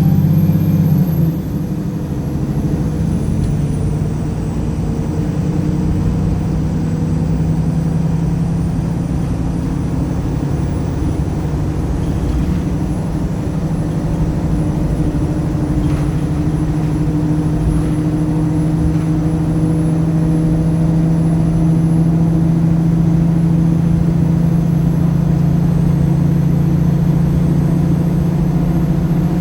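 Wright Pulsar single-deck bus heard from on board, its engine running steadily under way with a thin high whine above it. The engine is louder for the first second or so, and there is a single click about halfway.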